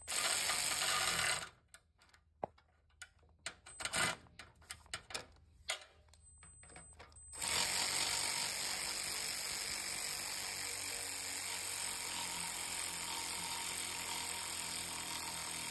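Tools working on a loose starter mounting bolt on a Harley-Davidson Evo Softail. About a second of steady noise is followed by a run of irregular ratchet clicks, then about eight seconds of steady tool noise from a little past the middle onward.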